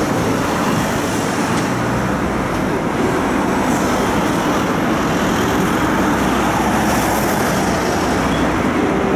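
City tram running along its line, heard from on board: steady running noise from the tram mixed with cars passing on the road alongside.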